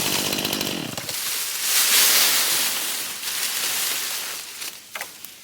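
Gas chainsaw running at high revs, its engine note falling away about a second in, followed by a loud rushing, hissing noise that swells and then fades over the next few seconds, with a sharp click near the end.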